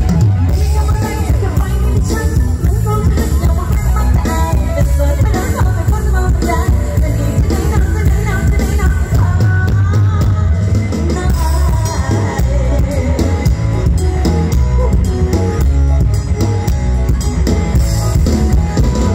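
Loud live Isan stage-show band music played through a large PA system: a steady drum kit and bass under pitched instruments, with a singer's voice.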